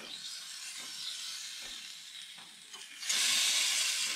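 Steak sizzling on hot grill grates, with a much louder burst of sizzling about three seconds in as the steak is moved on the grate with a spatula.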